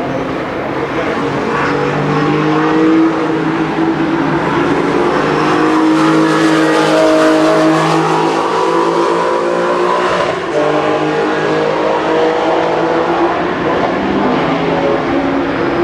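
Porsche engine noise at fairly steady revs, the pitch drifting only a little up and down, with a brief dip about ten seconds in.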